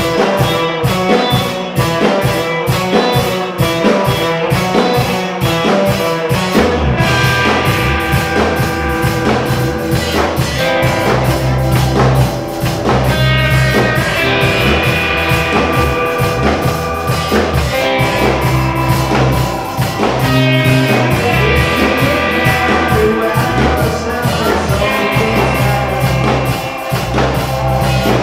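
Live rock band playing electric guitars and a drum kit, with bass. The band comes in fuller and heavier about seven seconds in and keeps playing.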